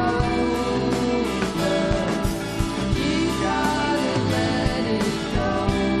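Live indie rock band playing a song: strummed acoustic and electric guitars with keyboard and drums.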